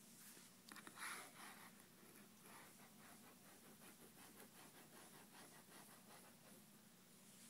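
Faint scratching of a pen drawing on paper: quick short shading strokes several times a second, with a louder stroke about a second in.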